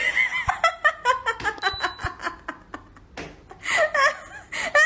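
High-pitched laughter in quick, short bursts, breaking into a longer wavering laugh near the end.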